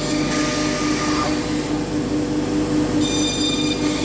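REU2030 CNC router spindle running steadily while milling a balsa wood sheet, a constant whine with high tones over the rush of the cut; the high tones grow stronger for about a second near the end.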